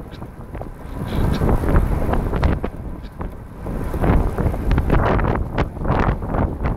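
Wind buffeting the microphone of a camera on a recumbent trike riding along a road: a loud, gusty rumble that grows louder about four seconds in.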